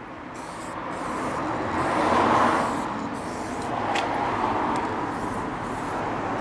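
A road vehicle passing, its noise swelling to a peak about two seconds in and then easing into steady traffic background. A single sharp click sounds about four seconds in.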